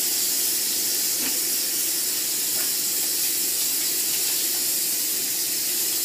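Kitchen faucet running steadily, its stream splashing onto a cat being washed in the sink: a constant hiss of water.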